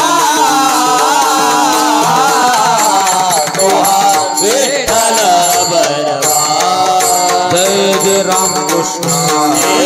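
Devotional Marathi singing: a male voice sings long, wavering phrases pitched high, over steady held drone notes and regular sharp percussion strokes.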